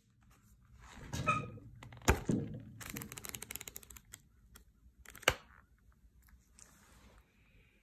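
Paper sketchbook being handled on a wooden desk: pages riffled in a quick run of small ticks, and two sharp knocks about three seconds apart as the book or its cover hits the table.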